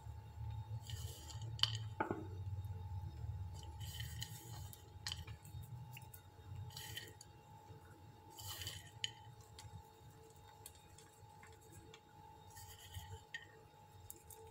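Faint rustling and tapping of chopped pistachios and sliced almonds being picked from a ceramic bowl and scattered by hand onto a dessert in a glass dish, with a couple of light clinks about two seconds in. A faint steady hum runs underneath.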